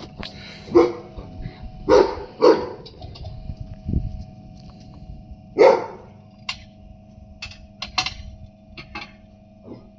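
A dog barking about four times, with a steady hum underneath and a few sharp clicks in the second half.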